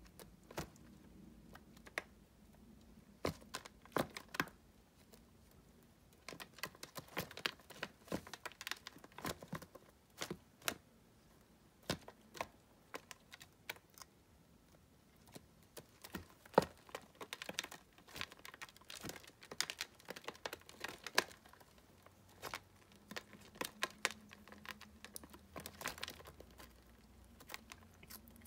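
Irregular sharp clicks and light taps on a clear plastic tub, from a baby tegu's claws and crickets hopping on and against the plastic. The clicks come in clusters, some single and some in quick runs. A faint low hum comes in near the end.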